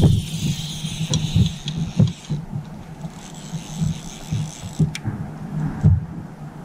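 Fly reel's click-and-pawl drag buzzing for about two and a half seconds as a hooked northern pike pulls line off, then stopping. Scattered dull low knocks come and go throughout.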